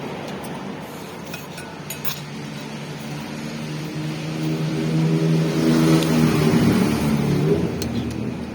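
A motor vehicle passing close by: its engine hum builds over a few seconds, is loudest about six seconds in, then fades. A few light clicks sound in the first couple of seconds.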